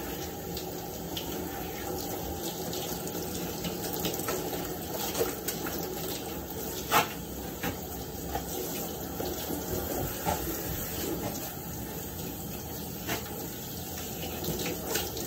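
Water spraying steadily from a handheld shower head onto a dog's wet coat and splashing into a bathtub as the shampoo is rinsed out. A few brief light knocks sound in the middle.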